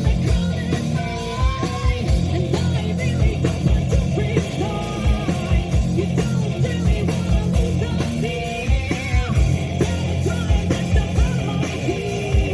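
Rock band playing live at a sound check: hard-hitting drums with a steady kick, distorted electric guitar and bass, with a sung vocal line over them.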